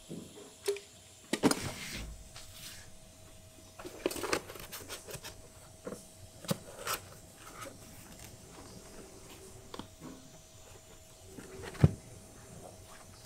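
Handling noise of a motorcycle helmet shell and its foam liner: scattered light knocks, taps and rubbing, with one sharper knock near the end.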